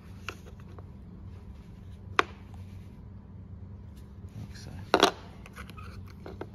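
Small clicks and knocks of the Shimano Di2 SM-BTR1 battery's plastic casing and cell holder being handled and set down on a workbench: a sharp tap about two seconds in and a louder clatter about five seconds in.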